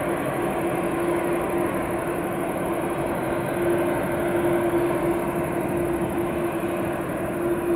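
Boeing 747-8F freighter's four GEnx jet engines running at low thrust as the aircraft moves along the ground: a steady jet rumble and hiss with a constant whine, swelling slightly midway.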